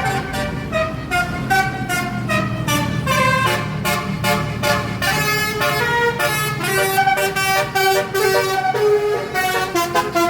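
Basuri 'telolet' musical horn playing a quick tune, one pitched note after another, over the steady low hum of a running engine.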